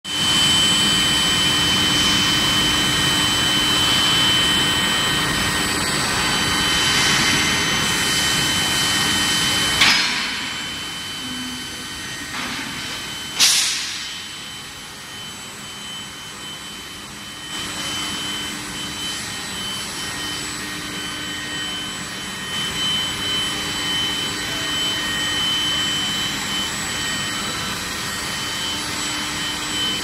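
Steady machine noise of a running steel-bar induction hardening and tempering line: a drone with a constant high-pitched whine. Two sharp knocks come about ten seconds in and again some three seconds later, and the drone is quieter for a few seconds after them.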